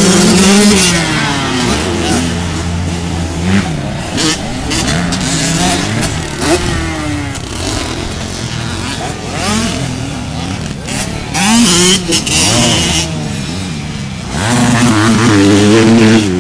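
Small mini-class motocross dirt bikes revving hard as they pass on the dirt track. The engine pitch repeatedly climbs and drops through throttle and gear changes. It is loudest as a bike passes close at the start and again near the end.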